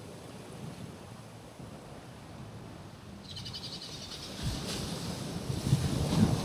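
Waves washing onto a rocky shoreline: a soft hiss at first, then a low rush of surf that builds from about halfway and grows louder near the end. A bird gives a rapid high trill a little past halfway.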